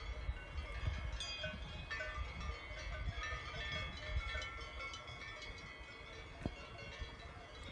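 Many small bells tinkling irregularly, in overlapping short ringing notes, over a low rumble.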